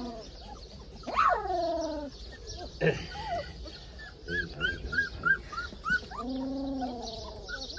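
Podenco puppies, under a month old, whining and yelping. There is a falling yelp about a second in and a longer, lower whine at about six seconds, and a string of short, high squeaks in between.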